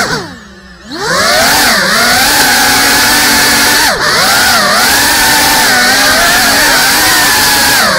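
Brushless motors of a GEPRC CineLog 35 cinewhoop whining with their 3.5-inch ducted propellers. The pitch swoops down as the throttle is chopped at the start, climbs back to a steady high whine about a second in, and dips briefly around four seconds in and again near the end.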